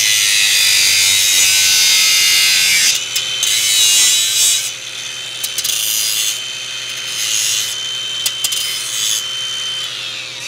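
A power tool cutting an over-long bolt down to length: a hard, loud cutting hiss for about the first three seconds, then the motor whining steadily with shorter cuts on and off. The motor winds down near the end.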